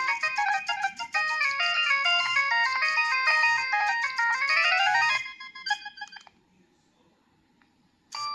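Preloaded ringtone on a Nokia 3120b mobile phone, playing a quick melody of many short stepped notes through its loudspeaker. It breaks off about five seconds in, a few scattered notes trail away, and after a short pause the next ringtone starts just before the end.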